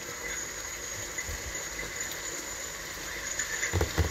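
Pisto of diced vegetables in tomato sauce simmering and reducing in a wide pan on a gas hob: a steady hiss with soft bubbling.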